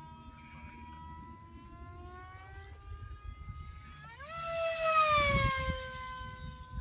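Radio-controlled VIP pylon racer plane making a high-speed pass: a steady high-pitched motor whine. About four seconds in it grows loud with a rush of air, and its pitch jumps up and then slides down as the plane goes by.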